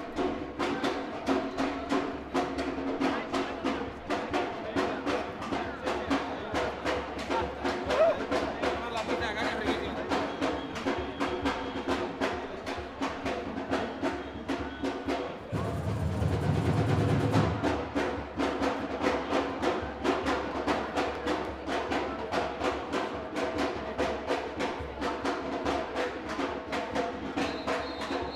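African drums beaten in a fast, steady rhythm by a street parade drum group, over sustained tones, with a louder, noisier stretch about sixteen seconds in.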